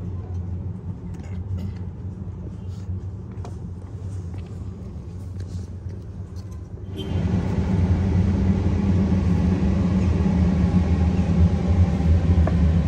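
Steady low rumble with a deep, even hum, which gets louder and fuller about seven seconds in.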